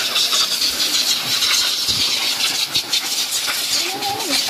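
Pet grooming dryer blowing air through its hose onto a wet puppy's fur: a steady hiss of rushing air.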